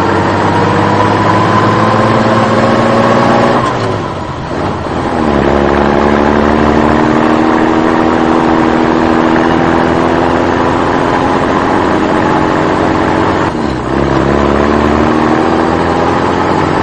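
Motor vehicle engine revving, its pitch climbing steadily in long sweeps that drop back and start again from low about four seconds in and again near fourteen seconds.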